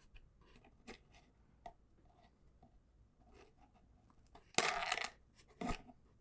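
Small metallic clicks and faint scraping of tweezers picking key pins out of a padlock's lock core, with a louder brief scrape or rustle about four and a half seconds in and a single click near the end.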